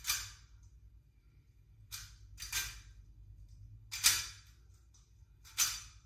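A plastic 3x3 Rubik's cube being turned by hand: short rasping clicks of its layers turning, in about five separate quick flurries, the loudest about four seconds in.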